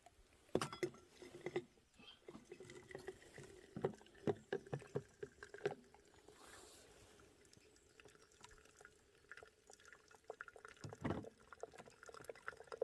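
Tea being made: scattered light clinks and knocks of pots and cups, and liquid being poured briefly about halfway through.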